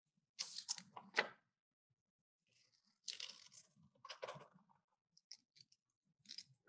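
Scissors snipping through thin origami paper in short runs of crisp cuts: a cluster about half a second in, another about three seconds in, then a few small snips near the end.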